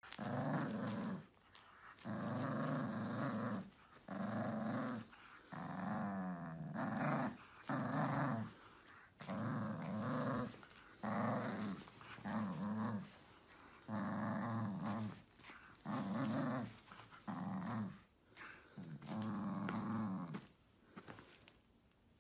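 Pug puppy play-growling while tugging on a plush toy: about a dozen growls, each a second or so long, with short breaks between them.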